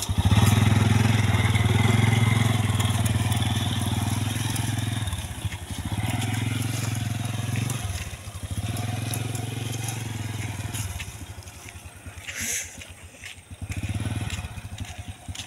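Motorcycle engine running under way, its sound easing off and picking up again several times as the throttle is worked, then growing quieter near the end.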